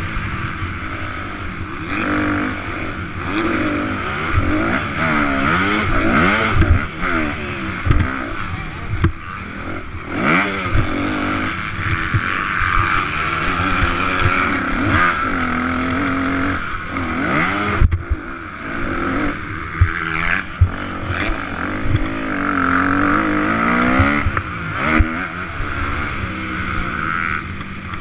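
Motocross dirt bike engine running at race speed, its pitch climbing and dropping again and again as the rider works the throttle and gears, with scattered short thuds over the rough dirt.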